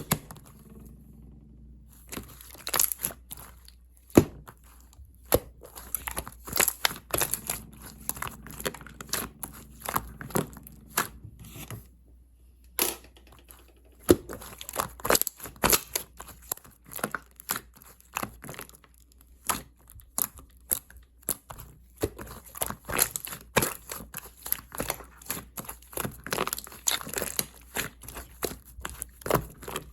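Clear slime mixed with small round beads being pressed and kneaded by hand, giving irregular crackling, crunching clicks and small pops.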